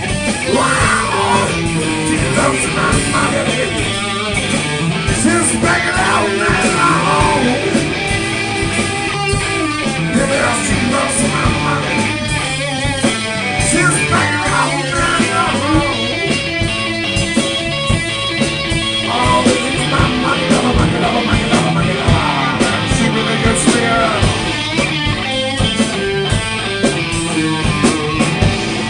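Live rock band playing: electric guitars and drum kit, with a singer's lead vocals over them.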